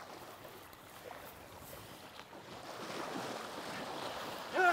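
Water splashing in shallow surf as a man wades in and grapples with a thrashing brown shark, the splashing growing louder over the last couple of seconds. A short rising shout comes right at the end.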